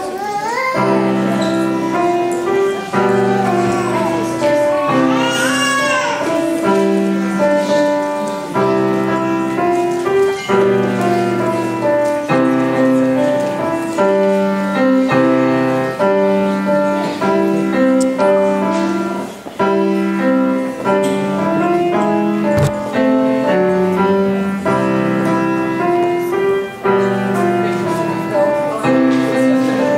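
Petrof grand piano being played: a continuous stream of notes over repeating low chords.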